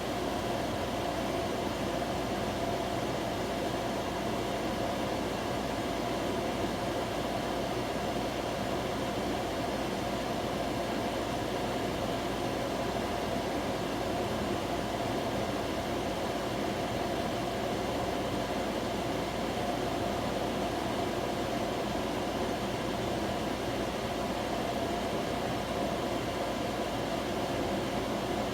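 Microwave oven's ventilation fan running continuously with a loud, steady whir and an unchanging hum. The owner takes it for the fan switched on by smoke from burnt toast.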